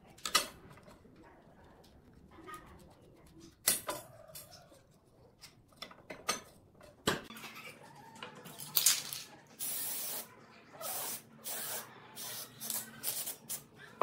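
A few sharp clicks and knocks of hand tools on the knife, then an aerosol spray can hissing out in bursts: one longer burst about two-thirds of the way through, then several short ones.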